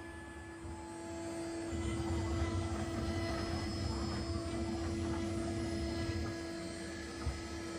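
CNC router spindle running with a steady whine while a tapered bullnose end mill with a 0.5 mm radius tip takes the fine finishing pass through MDF, over an uneven low rumble from the cutting. It grows a little louder about two seconds in.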